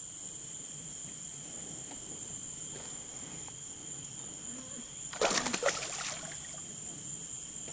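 Steady, high-pitched chorus of insects trilling in the riverside woods. About five seconds in, a short splash lasting about a second.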